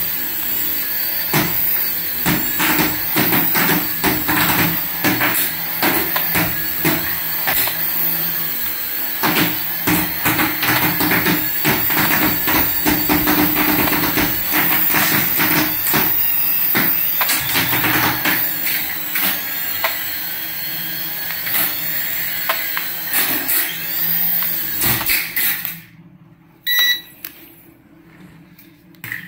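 Small coaxial toy RC helicopter's electric motors and twin rotors whirring steadily in flight, with frequent sharp clicks throughout. Near the end the motors cut out suddenly, leaving it much quieter with a couple of small clicks.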